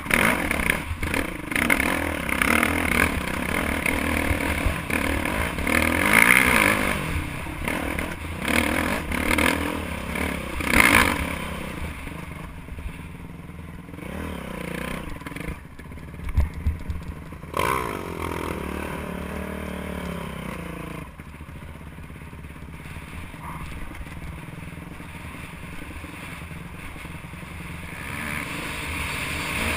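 Dirt bike engine heard from on board, revving up and down as the bike is ridden over rough ground, mixed with wind on the microphone and the clatter of the bike over bumps. The first part is loud and jolting; after about twelve seconds it goes quieter, with the engine pitch rising and falling.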